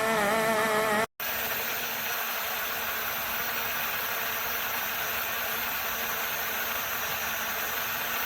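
Vootun portable mini blender's small motor running with its four stainless-steel blades: at first a whine that wavers in pitch, then, after a brief cut about a second in, a steady whirring buzz.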